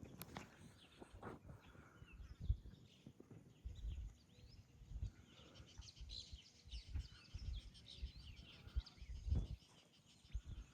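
Small birds chirping and calling continually, with irregular low thumps and rumbles on the microphone.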